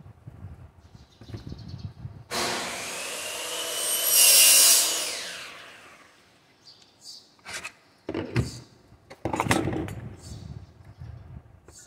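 Portable wood router's motor switched on briefly: it starts suddenly about two seconds in, runs and gets louder for about two seconds, then winds down over another second or so. A few knocks and clicks of the router being handled follow near the end.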